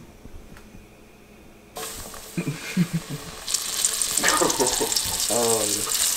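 A floured piece of squirrel meat goes into hot oil in a frying pan and starts sizzling about two seconds in. The sizzle grows louder and crackly a second or so later.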